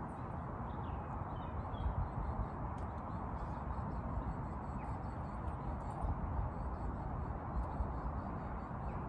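Wind buffeting the microphone outdoors, a steady rushing rumble that swells and eases, with a few faint high bird chirps about a second and a half in.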